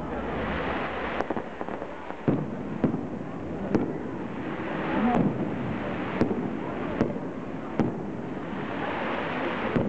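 Aerial fireworks display: shells bursting in sharp bangs at irregular intervals, roughly one a second, with a crackling hiss between them.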